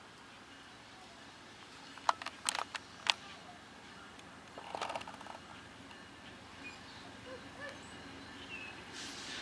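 Quiet outdoor background broken by a quick cluster of sharp clicks a little over two seconds in and a brief rustle about five seconds in, with a few faint chirps later.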